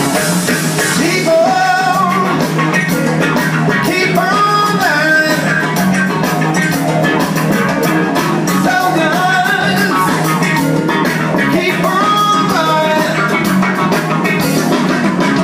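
Live rock music with singing, electric guitars, bass and drums, played loud through a home audio system's floor-standing loudspeakers and heard in the room.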